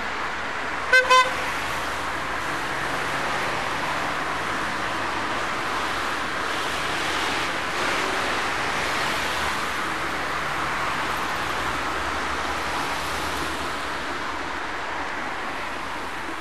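Steady road traffic noise from cars driving past. About a second in, a horn gives two short, loud toots.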